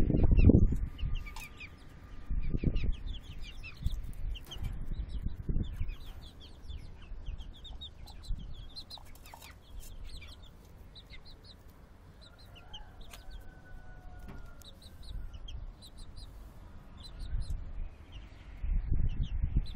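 Young Plymouth Rock and Campine chickens peeping, with many short high chirps and some clucking. Low rumbles on the microphone near the start and near the end are louder than the birds.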